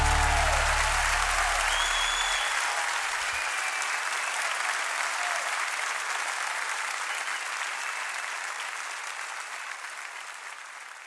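Audience applauding after a live piano, violin and band performance, slowly dying down. The low notes of the final chord ring on beneath the applause for about the first three seconds.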